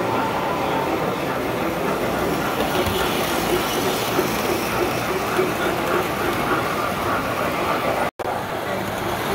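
Standard-gauge toy electric train running past on three-rail metal track: a steady rattle of wheels on the rails with motor hum. The sound cuts out for a split second near the end.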